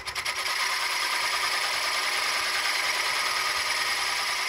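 A turning tool cutting into a spinning wooden spindle on a wood lathe, a steady scraping cut with a fast, even pulse, as a small step (shoulder) is cut into the handle. It grows louder a moment in, as the tool bites deeper.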